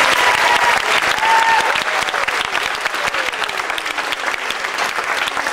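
Audience applauding, many hands clapping steadily in a large hall, with a few faint voices over the clapping.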